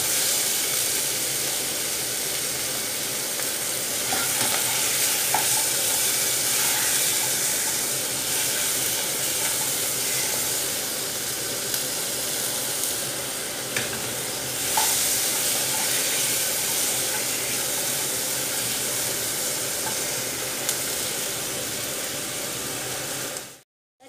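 Chicken thigh pieces frying in oil with onion, garlic, ginger and chili in a non-stick pot, a steady sizzle with a few light scrapes and knocks of the stirring spoon. The sound cuts off suddenly near the end.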